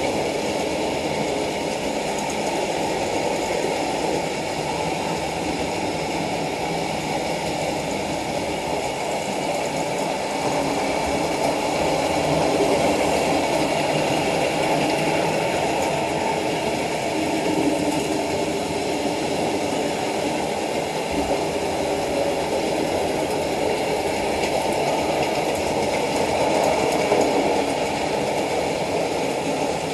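Hornby Dublo OO-gauge model diesel locomotives and their trains running on the layout: a steady whir of the electric motors and the rumble of metal wheels on the track.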